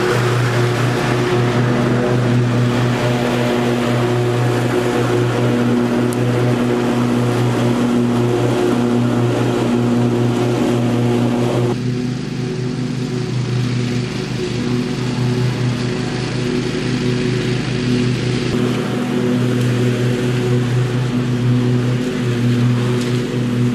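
Riding lawn mower engine running at a steady speed while mowing grass with freshly fitted blades. About halfway through, the sound becomes quieter and duller.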